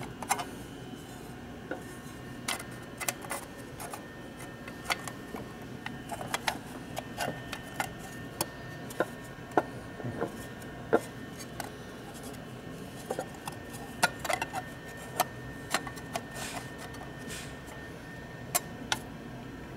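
Light metallic clicks and clinks at irregular intervals as a clutch friction plate is turned and seated by hand in a Rivera Primo clutch basket, its tabs tapping against the basket slots while their fit is checked. A steady low hum runs underneath.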